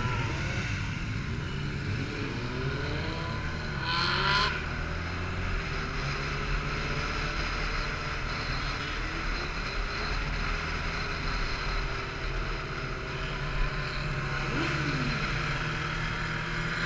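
Motorcycle engine running under way, its pitch shifting with the throttle and gear changes, with a steady rush of wind over the microphone. There is a short gust of louder wind noise about four seconds in.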